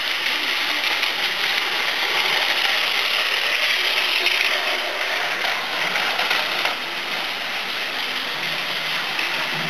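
Battery-powered Plarail toy trains running on plastic track: a steady whirring rattle of their small geared motors and wheels, a little louder in the first half.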